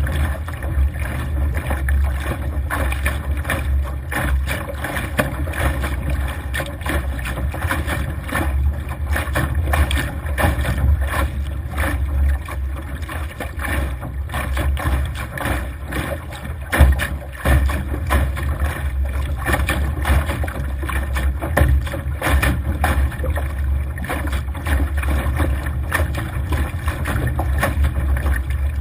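Wind buffeting the microphone of a camera mounted on a Laser dinghy's deck, over water rushing and splashing against the hull as the boat sails fast through chop. The noise is steady and loud, with a dense crackle of spray throughout.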